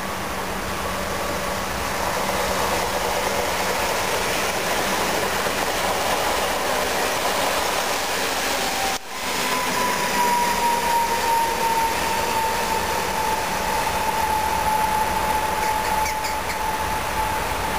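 PESA Elf electric multiple unit passing at speed, with wheels running on the rails in a dense, rising rush. After a brief dropout about halfway, a steady electric whine falls slowly in pitch as the train pulls away.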